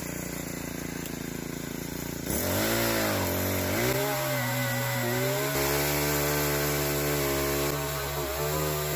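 Small pole chainsaw's motor running. About two seconds in it gets louder, and its pitch sags and rises again for a couple of seconds before it settles into a steady run.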